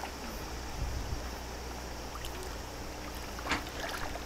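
River water flowing with a steady rush, with a couple of low thumps about a second in and a sharp knock about three and a half seconds in.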